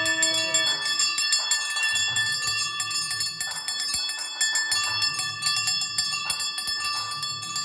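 Hindu temple bells ringing rapidly and without pause, the strokes blending under a steady ringing tone.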